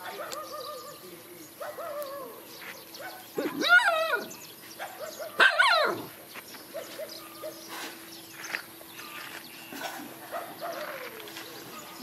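Dogs giving drawn-out cries: faint ones early, then two loud ones that rise and fall in pitch, about four and six seconds in, with fainter calls after. A steady faint hum runs under them.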